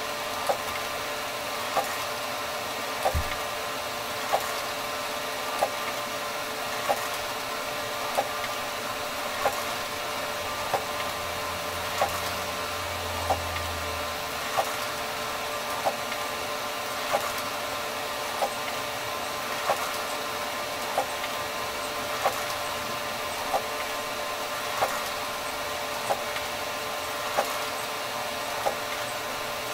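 ENCAD NovaJet 750 wide-format inkjet printer running a print job: a steady mechanical whine with a sharp click about every one and a quarter seconds as the print-head carriage makes its passes. One deeper knock comes about three seconds in.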